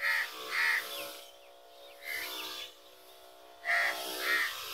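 Crows cawing: about six short, harsh caws, mostly in pairs. The crows are harassing a person near their nests in the trees.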